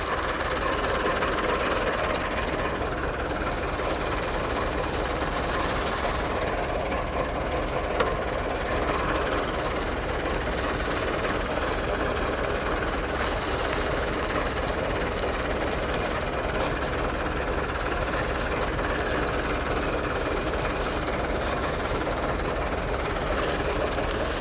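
Landini tractor's diesel engine running steadily with a dense mechanical clatter, heard from on board while working the field.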